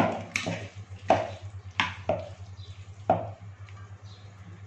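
Metal spoon knocking and scraping against a stainless steel pot while stirring pasta in tomato sauce: a string of sharp clinks over the first three seconds, then quieter. A steady low hum runs underneath.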